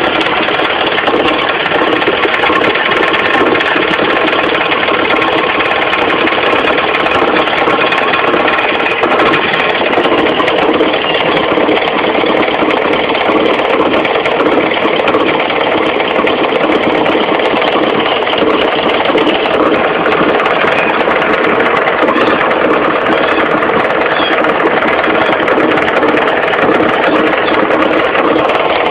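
Mitsubishi 4G15 carbureted four-cylinder engine idling steadily with a knocking rattle from the crankshaft pulley area: the crankshaft pulley has worked loose.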